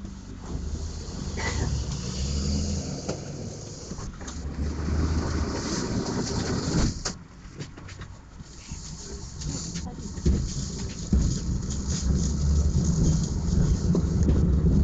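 Tram running, heard from inside the car: a steady low rumbling hum, with a sharp knock about seven seconds in. After the knock it goes quieter for a moment, then builds again and grows louder toward the end.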